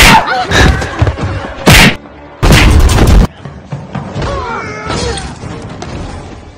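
Film fight sound effects: heavy hits and a booming crash over an action music score. There is a hit right at the start, another just before two seconds in, and a heavier, deeper crash at about two and a half seconds lasting under a second. After that the score continues more quietly.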